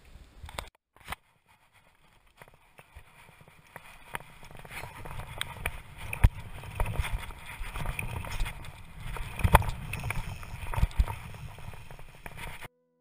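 Mountain bike ridden over a dirt-jump trail, heard through a GoPro carried on the ride: tyres rumbling on packed dirt and the bike rattling, with sharp knocks as it hits the jumps and bumps. It builds up after a couple of quiet seconds and cuts off abruptly near the end.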